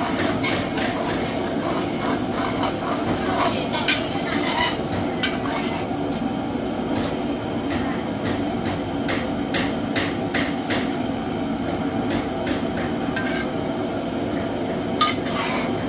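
Irregular sharp knocks and clacks of utensils at work over a steady background din.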